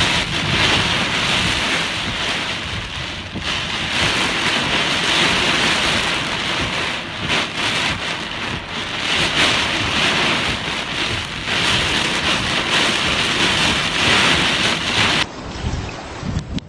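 Heavy wind-driven rain in a hurricane: a dense, steady hiss that swells and eases with the gusts. About fifteen seconds in it cuts to a duller recording, with wind buffeting the microphone.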